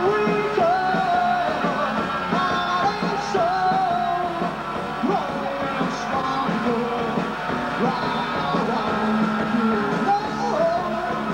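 Rock band playing live, with a singer's voice over the instruments.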